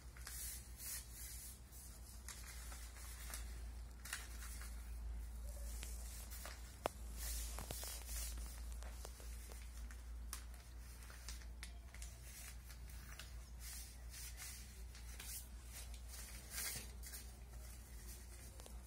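Newspaper strips rustling and scraping on a concrete floor as they are folded and pressed flat by hand, with one sharp click about seven seconds in.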